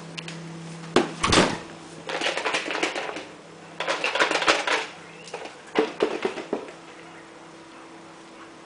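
Irregular clattering and rustling from handling things at a fridge, as carrots are taken out, with a sharp knock about a second in. A steady low hum runs underneath and stops about four seconds in.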